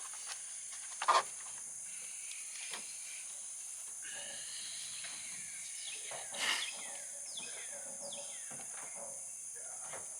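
Outdoor ambience: a steady high insect drone with birds calling in short falling notes. Two sharp knocks sound, one about a second in and a softer one past the middle.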